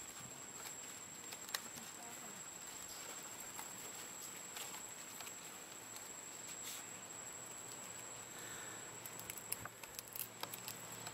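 Faint rustling and light clicks of plant leaves being pulled and mouthed by a baby macaque, with a quick run of clicks near the end, over a steady high-pitched whine.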